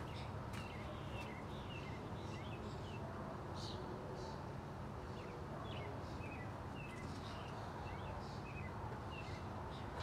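Small birds chirping on and off over a steady low background hum, with a couple of sharp clicks in the first second or so.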